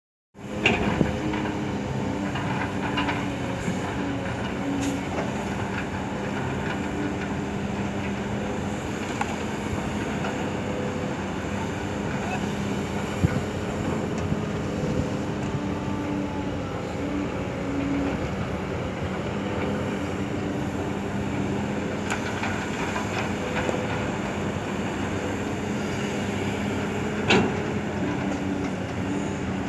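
Diesel engines of heavy earthmoving machinery, a Kobelco SK200 excavator and a ten-wheel dump truck, running steadily under work, with a few sharp knocks, the loudest near the end.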